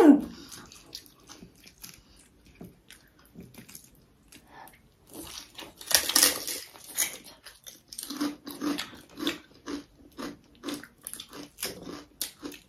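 A person eating close to the microphone: soft chews and crunches, with a louder crunching bite about six seconds in, settling from about eight seconds in into steady chewing at about two strokes a second.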